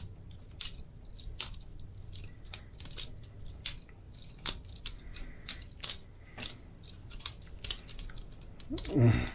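Boker Plus balisong butterfly knife being flipped open and closed: sharp metallic clicks as its handles and blade swing around and clack shut, about two a second at an uneven pace.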